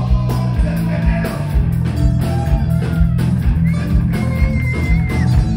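Live rock band playing loud: electric guitar, bass and a steady drum beat, heard from the audience. A high note is held and bent slightly a few seconds in.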